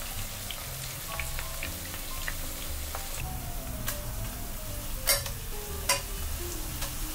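Batter-coated enoki mushrooms sizzling in shallow oil in a nonstick frying pan, a steady crackling hiss. Two sharp clicks about five and six seconds in, as metal tongs knock against the pan while turning the pieces.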